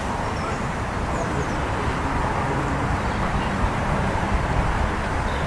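Steady, rumbly outdoor background noise, even throughout, with no distinct call or impact standing out.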